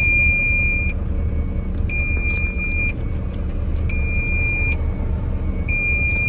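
BharatBenz truck's reverse warning beeper sounding four long, evenly spaced beeps, each about a second long with a second's gap, as the tractor-trailer backs up. Under it the truck's diesel engine runs at a steady low rumble.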